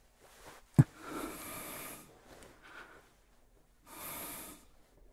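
A man breathing close to the microphone: a sharp thump about a second in, followed by one long breath, then a second breath near the end.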